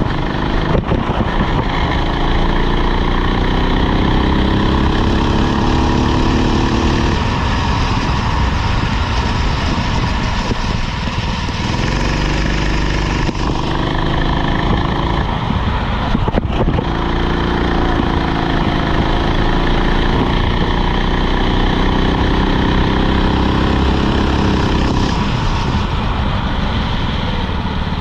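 Rental kart engine running hard, its pitch climbing slowly and then dropping off suddenly, three times, as the throttle is lifted and reapplied. A steady rush of noise sits underneath.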